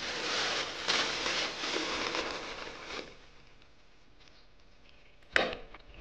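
A plastic bag of dried tea leaves crinkling and rustling as it is handled, for about three seconds. Near the end comes a single sharp knock of a ceramic lid set onto a tea jar.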